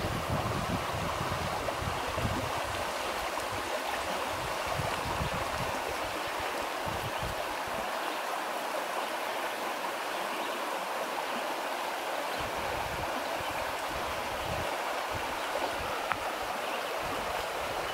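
Shallow rocky forest brook flowing steadily over stones and riffles, a constant even water noise.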